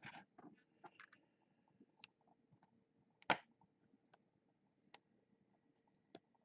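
Faint, scattered clicks and taps against near silence, a handful of them, the loudest about three seconds in.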